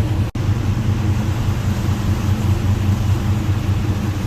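An engine running steadily with a low drone and broad rushing noise over it, briefly cut out for an instant about a third of a second in.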